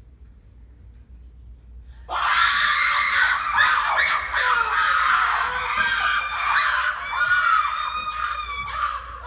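Several people screaming at once in fright, starting suddenly about two seconds in and going on for about seven seconds.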